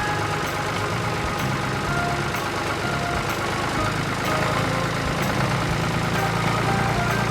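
Cartoon sound effect of a heavy construction vehicle's engine running steadily, its low hum growing stronger about four seconds in, with faint background music on a light steady beat.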